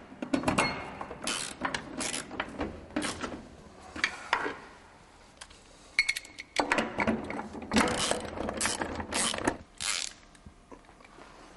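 Ratchet wrench clicking in quick runs as the bolts of a busbar spring bracket's guide elements are tightened. It comes in two spells, with a short pause about halfway through, and goes quieter near the end.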